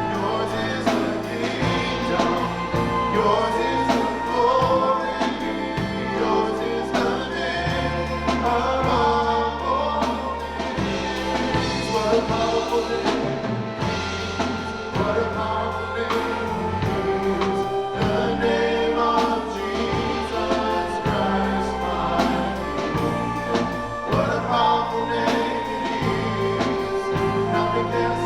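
Gospel-style worship music: a group of singers over a band with bass and a steady beat.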